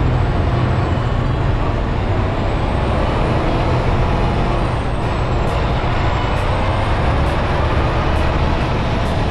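Semi truck driving at road speed, heard from a camera mounted outside the cab: a loud, steady rush of wind and road noise with a deep rumble underneath.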